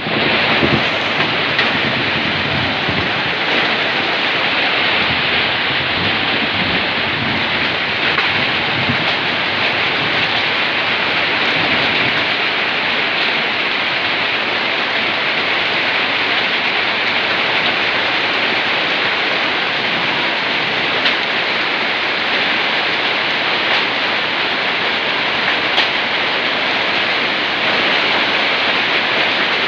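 Heavy rain falling with hail: a dense, steady hiss of the downpour with a few sharper ticks of hailstones striking.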